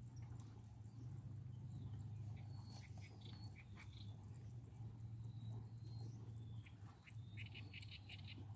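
Quiet pond-side ambience: a steady low hum under scattered short, high chirps from small wild animals, with a quick run of chirps near the end.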